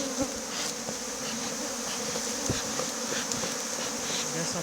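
Honeybees buzzing around an opened hive: a steady, dense hum of many bees.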